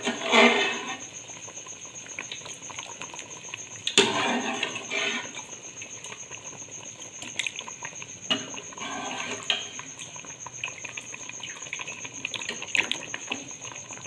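Metal spoon stirring beef trotters in a steel pot: three stretches of scraping and clinking against the pot, with small clicks and the liquid bubbling in between. A faint steady high-pitched whine runs underneath.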